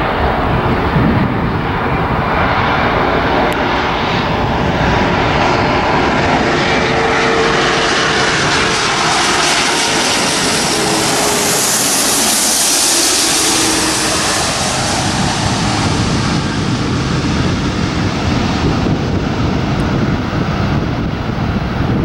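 Jet airliner's engines passing low overhead. The noise swells to its loudest about halfway through, with a faint whine that drops slightly in pitch as the aircraft goes by, then fades slowly.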